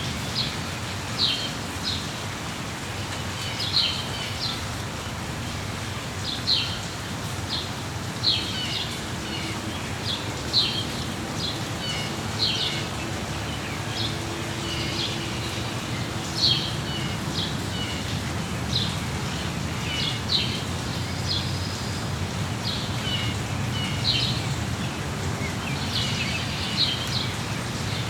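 Birds chirping in short high bursts, one every second or two, over a steady hiss of rain.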